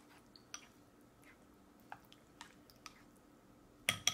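A toddler eating off a spoon: faint wet mouth clicks and smacks of chewing scattered throughout, then two sharp clicks close together near the end.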